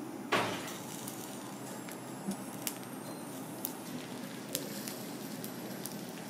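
Mahi mahi (dolphinfish) pieces grilling on a wire rack over glowing heating elements: a steady low sizzle with scattered sharp pops and crackles as juices drip onto the heat. A louder sharp crackle with a brief hiss comes about half a second in.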